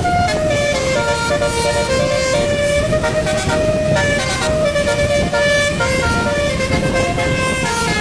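Basuri multi-tone bus horn playing a melody in held notes that step from one pitch to the next every half second or so, over a steady low rumble and hiss.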